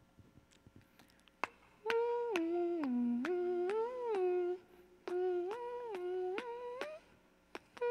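A man humming a short wordless tune into a handheld microphone: two phrases of held notes stepping up and down, starting about two seconds in.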